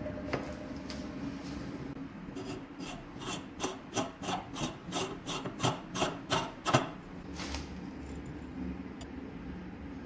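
Quick back-and-forth scraping strokes on the rusty metal of a manual meat grinder, about three a second, as in scrubbing or filing off rust by hand. The strokes start about two seconds in and stop a couple of seconds before the end.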